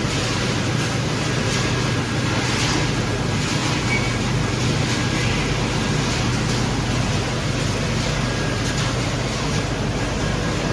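A PCB crushing and separating recycling machine running: a steady loud rush of machine noise over a low hum, with faint rattling of material passing through.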